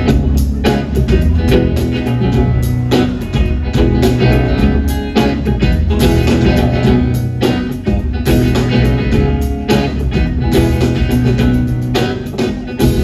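Rock band playing live: guitar over bass and drums with a steady beat, no vocals.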